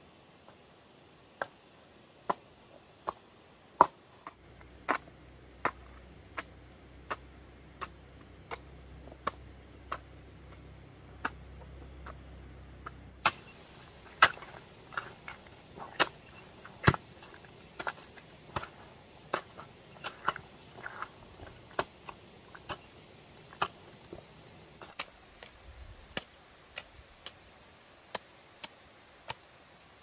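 A hoe chopping into dry, stony soil in a steady rhythm, about one and a half sharp strikes a second, growing louder from about halfway through.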